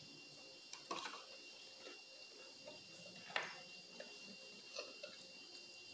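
Quiet eating sounds: a few short, soft clicks and smacks of chewing and of fries and fried chicken being handled from the plate, the sharpest about three and a half seconds in.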